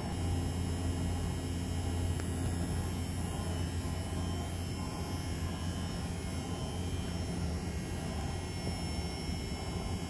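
SF-9324 mechanical vibrator humming steadily at a low pitch, driven at 87 Hz by a sine wave generator to shake a stretched string into standing waves. The hum is strongest over the first few seconds, over a steady hiss.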